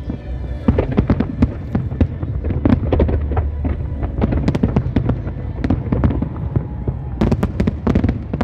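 Aerial fireworks shells bursting in a dense, continuous barrage of rapid bangs and crackling, with a thicker cluster of bangs near the end.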